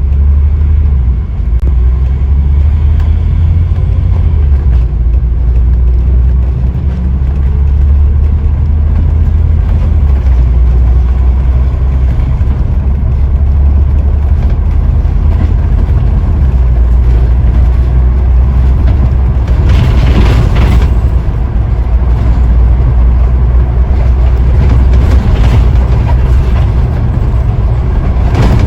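Scania N94UD OmniDekka double-decker bus engine running under way, heard from inside the bus as a steady deep rumble. About twenty seconds in there is a brief louder rush of noise.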